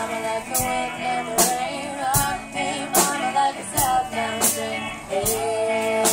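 Live rock band playing: electric guitars and a drum kit, with a sharp drum or cymbal hit about every 0.8 s, under a female lead vocal. A long held note comes in near the end.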